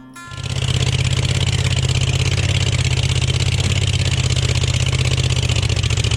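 Farm tractor's diesel engine running loud and steady, with a deep even throb; it comes in about half a second in.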